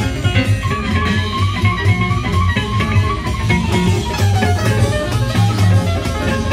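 Recorded music with guitar, bass and drums, played from a vinyl record through a KLH Model Six loudspeaker driven by a KLH Model Sixteen germanium-transistor amplifier. A prominent bass line runs under plucked guitar notes.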